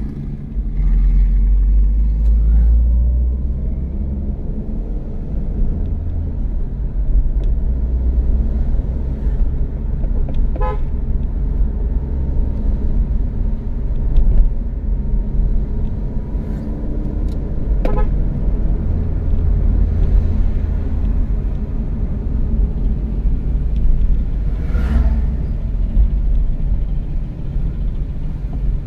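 Car driving on a paved road, heard from inside the cabin: a steady low rumble of engine and tyres. Two short horn toots sound, about a third of the way in and again past halfway.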